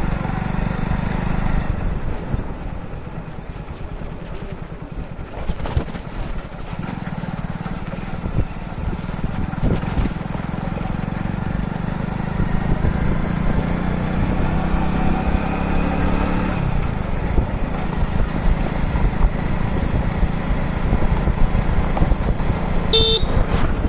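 Motorcycle engine running steadily while riding, with wind and road noise over it; the engine note eases off a little past the middle. A short high beep sounds near the end.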